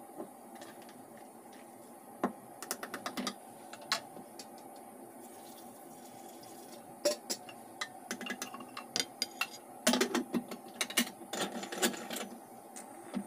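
Aluminium pressure cooker being handled: sharp metal clicks and knocks, with water poured into the pot around the middle. Near the end, a dense run of clicks and scrapes comes as the lid is set on and locked.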